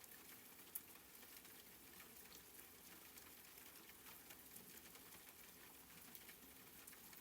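Faint rain-sound background: a steady light patter with scattered single drop clicks.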